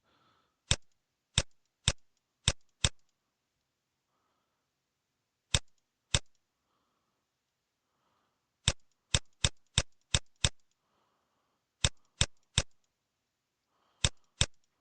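Computer mouse clicking: about eighteen sharp single clicks, some spaced out and some in quick runs of three to six.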